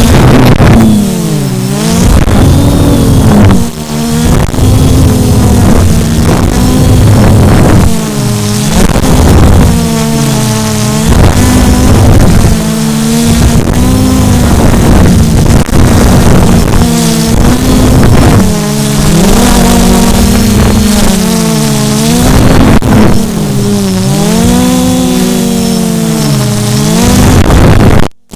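QAV400 quadcopter's electric motors and propellers buzzing close to the microphone, their pitch dipping and rising over and over as the motors speed up and slow down to hold the craft in flight. The sound cuts out for a moment near the end.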